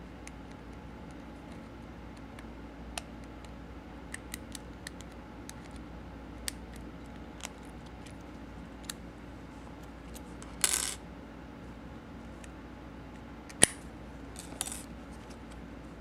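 Bent bobby pins picking a brass Master padlock: scattered small metallic clicks as the pins work the keyway, then a louder scraping rattle about two-thirds of the way through, a single sharp click that is the loudest sound, and a brief rattle near the end.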